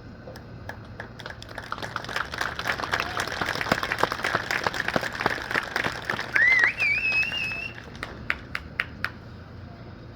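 Audience applauding, swelling over several seconds and then thinning to a few scattered claps. About six seconds in, a loud whistle rises in pitch and holds.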